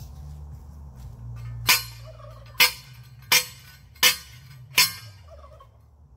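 Five loud metal-on-metal clangs, a little under a second apart, each with a short ring: a steel fence T-post being struck on its top to drive it into the ground.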